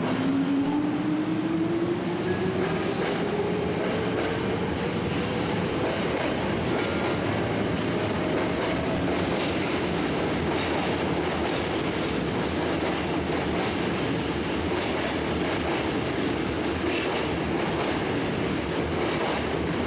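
Hankyu 5100 series electric train pulling away: its motors whine, rising steadily in pitch over the first several seconds as it speeds up, over the rumble of the moving cars. Later the wheels clatter over the rail joints as the cars roll past.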